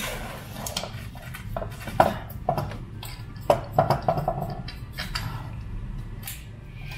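Hands working on the wiring connector of an electric power steering rack: a handful of sharp clicks and small metallic clinks, bunched between about two and five seconds in.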